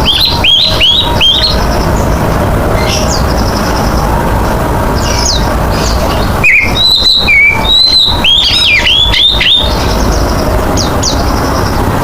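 Oriental magpie-robin (kacer) singing: a quick run of four falling whistled notes near the start, then about halfway a longer phrase of clear whistles and falling notes lasting about three seconds, over a steady background noise.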